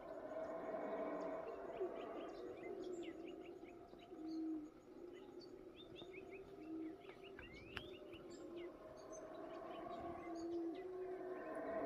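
Howler monkeys roaring in the distance, a faint low droning chorus that swells near the start and again toward the end. Short low coos repeat every second or two, and birds chirp scattered throughout.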